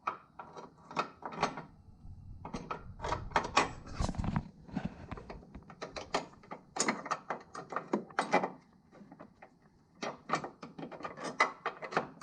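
Repeated metal clanks and knocks as a coilover mounting bracket is worked into place on the front suspension, with a heavier thump about four seconds in; the bracket does not drop into place at first.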